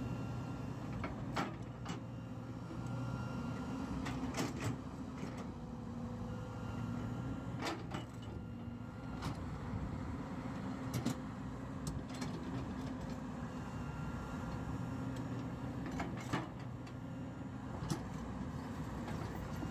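JCB crawler excavator's diesel engine and hydraulics running steadily, the engine note shifting slightly as the arm and bucket are worked. About a dozen sharp knocks and clanks break through it as the bucket digs into sand and rock.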